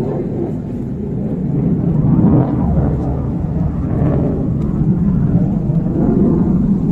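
A loud, low rumbling noise that swells about two seconds in and then holds steady.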